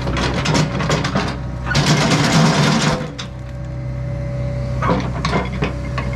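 John Deere 85G excavator's diesel engine running steadily, with clanks and knocks near the start and again about five seconds in, and a rushing burst of noise lasting about a second, a little under two seconds in.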